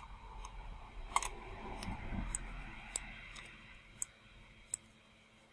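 Computer mouse clicking: about eight sharp, separate clicks at uneven intervals, with a faint low rumble of hand movement between about one and three seconds in.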